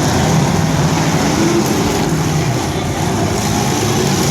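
Demolition derby truck engines running loud and steady, one revving up about one and a half seconds in.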